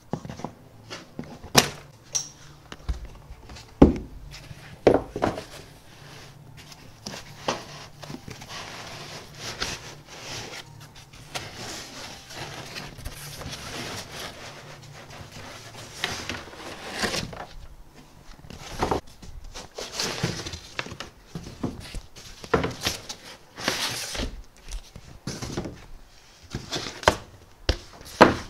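Packing materials being handled: plastic packing straps cut with scissors near the start, then large foam sheets and cardboard rustling and scraping, with sharp knocks and thumps scattered throughout.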